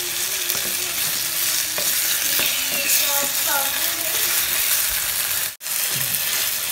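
Onion, potato and tomato sizzling steadily as they fry in oil in a clay pot, with a wooden spatula stirring and scraping against the pot and a few light knocks. The sound drops out for an instant about five and a half seconds in.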